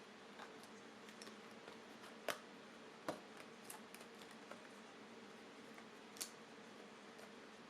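Faint scattered clicks and taps of a headphone box being handled during unboxing, with sharper clicks about two, three and six seconds in, over quiet room tone.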